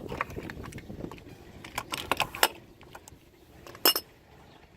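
Scattered light clicks and rattles of a car wheel's plastic hub cover and its plastic screws being worked loose and popped off, with one sharper click near the end.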